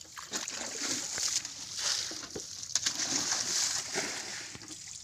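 Muddy shallow water sloshing and splashing in uneven strokes as hands work a fishing net through it.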